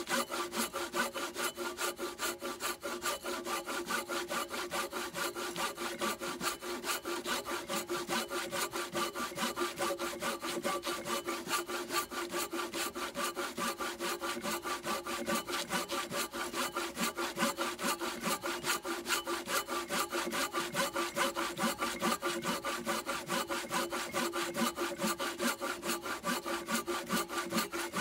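Silky BigBoy 360 mm coarse-tooth folding pull saw cutting into a thick wooden log, with steady, rapid back-and-forth strokes.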